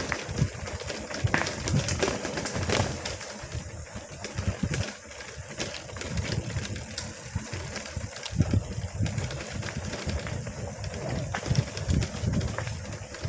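Mountain bike rattling over a rough, bumpy trail, with many scattered knocks and clatters from the bike, and wind buffeting the microphone in gusts.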